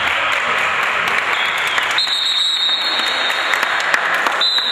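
Spectators clapping in a gym: a steady, dense patter of applause, with a steady high tone running through the second half.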